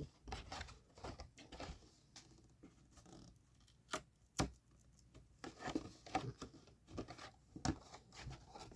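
Light handling noises: scattered soft clicks and rustles of objects being moved about, with two sharper clicks about four seconds in.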